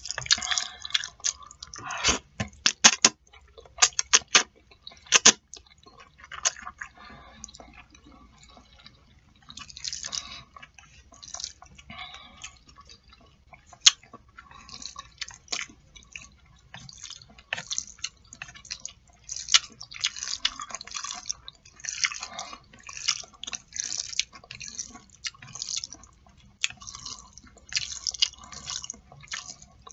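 Close-up wet chewing and smacking of black bean sauce noodles (jajangmyeon), with a run of sharp clicks about two to five seconds in.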